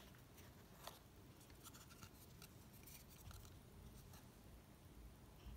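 Faint scraping and light clicks of a thick trading card being slid out of a tightly packed stack of cards in a box.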